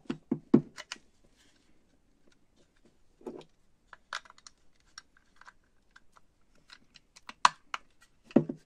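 Small metal clicks and taps from Tunturi Pappa moped drum brake parts being handled and fitted: the cam lever going onto its shaft on the brake backing plate. The clicks come irregularly, with the sharpest ones near the end.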